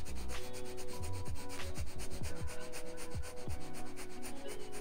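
A woman panting quickly and evenly through her nose, in short sharp breaths, in the 'dog panting' exercise that pushes the belly out to strengthen the diaphragm.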